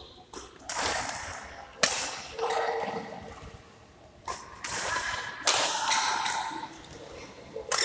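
Badminton rackets hitting a shuttlecock in a doubles rally, about five sharp hits a second or two apart, each ringing out in a large hall.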